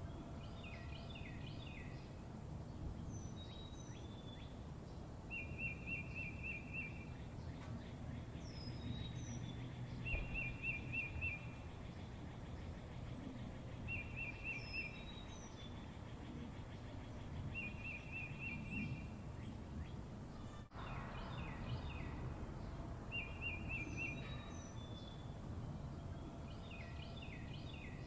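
Small birds chirping and calling, one of them repeating the same short, fast trill about every four seconds, over a steady low background rumble.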